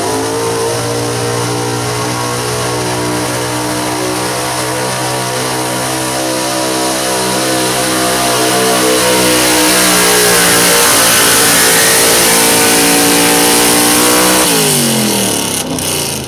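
Modified pulling pickup truck's engine at full throttle, dragging a weight-transfer sled: held at high, steady revs and growing louder, then the revs drop away sharply about two seconds before the end as the pull finishes.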